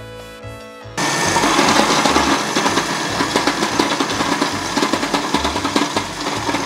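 Kenwood food processor switched on about a second in, its blade chopping pieces of haddock and onion with a loud whir and a dense rapid clatter.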